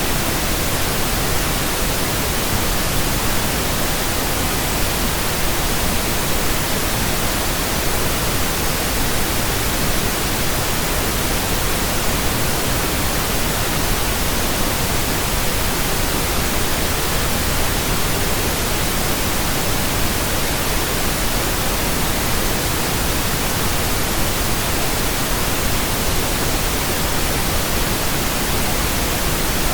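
Steady pink noise: an even, unbroken hiss of soft static like a radio tuned between stations.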